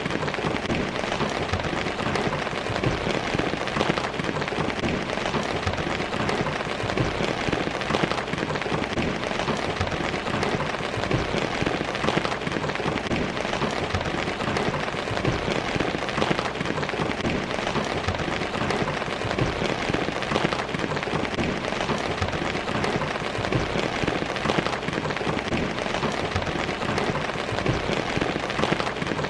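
Steady rainfall, a dense even patter of drops hitting surfaces.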